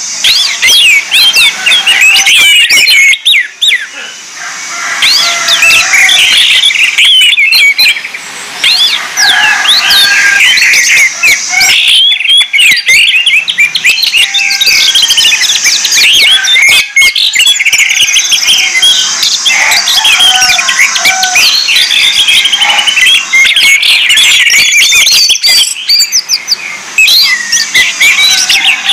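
Orange-headed thrush song: a loud, nearly unbroken stream of rapid, varied whistled phrases and trills, with a few brief lulls.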